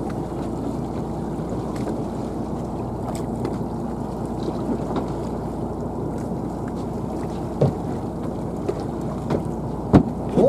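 Steady low rumble of a small fishing boat's engine running, with wind on the microphone and two sharp knocks in the second half.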